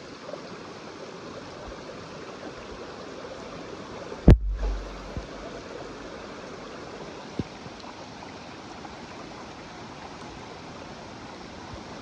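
Shallow creek water running over rocks, a steady rush. About four seconds in there is one sharp knock with a brief low rumble after it.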